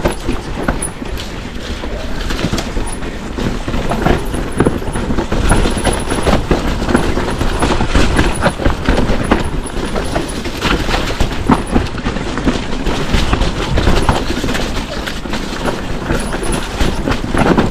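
Mountain bike riding fast down a rough trail: a constant dense clatter and rattle of tyres, chain and frame over rocks and roots.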